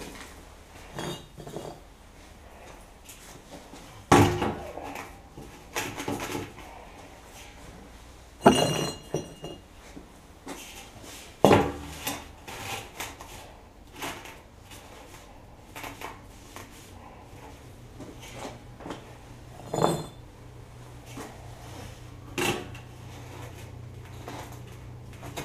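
Hard clinks and knocks inside a steel oil barrel as firebricks are set down on its floor, a series of separate sharp impacts, a few with a brief metallic ring from the barrel.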